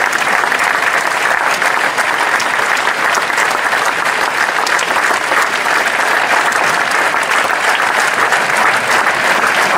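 Large indoor audience applauding, a dense, steady clapping that does not rise or fade.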